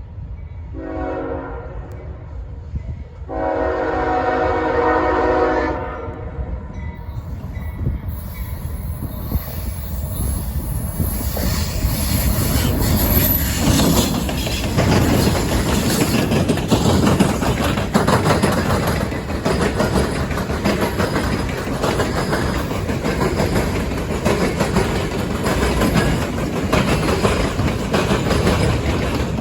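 CSX freight train led by two diesel locomotives sounding its air horn, a short blast and then a longer one of about three seconds. The locomotives and cars then rumble past, wheels clattering over the rail joints, growing louder and staying loud.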